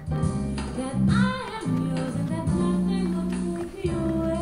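Background music: a song with a singing voice over guitar and steady sustained notes underneath.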